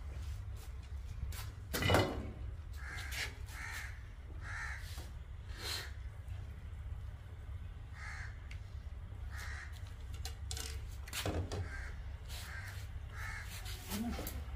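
A bird calling in short repeated calls: a few in quick succession, then another scattered run later, over a steady low rumble. A sharp knock about two seconds in is the loudest sound, with a second knock later.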